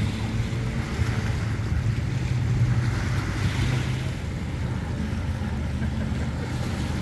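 Outboard boat motors running at low speed, a steady low hum, over wind and choppy water lapping.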